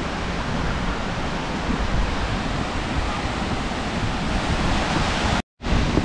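Steady rushing of a waterfall: an even, continuous roar of falling water. It cuts out for a split second near the end.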